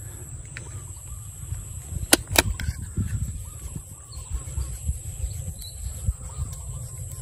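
Two sharp airgun shots, about a third of a second apart, roughly two seconds in, over a steady low rumble of wind on the microphone. Faint bird calls are in the background.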